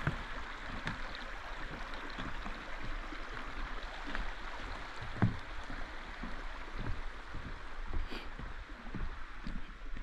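A small mountain brook babbling steadily over rocks, with footsteps thudding on a wooden boardwalk.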